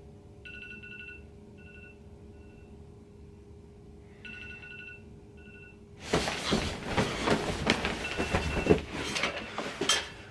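An electronic alarm beeps in two rounds, each a longer tone followed by a few shorter ones. About six seconds in, loud rustling and bumps of bedding take over as someone throws off a pillow and climbs out of bed.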